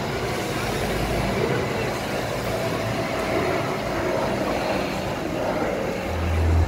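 Steady road and engine noise of a heavy truck hauling a wheel loader on a trailer through street traffic, with no distinct knocks or horn.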